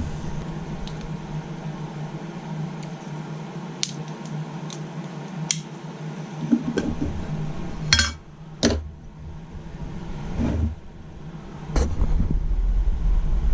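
Steady low hum with a handful of sharp clicks and clinks from objects being handled and set down.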